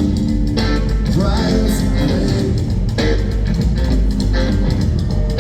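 Rock band playing live, with a strong bass line and steady drums.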